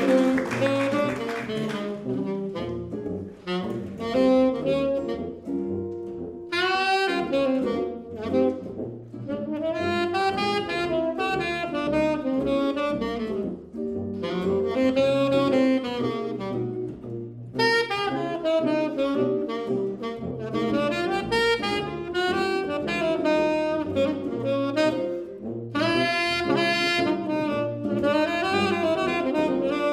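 Small jazz group of saxophone, tuba and electric guitar playing a blues: the saxophone plays phrases with short breathing gaps over the tuba's bass line and guitar chords.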